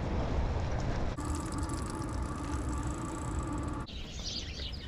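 Wind and rolling rumble of a bicycle ride. About a second in this cuts abruptly to a steady mechanical hum with fast, fine ticking, which stops suddenly just before the end. Then small birds start chirping.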